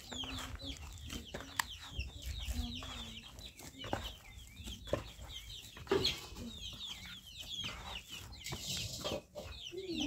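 Chickens clucking, with many short, high, falling peeps repeating throughout and a few lower drawn-out calls. A few sharp knocks stand out, the loudest about six seconds in.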